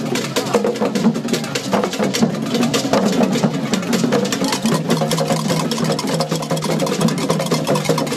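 Akom drum ensemble playing a fast, dense rhythm of hand-drum strokes, with crowd voices underneath.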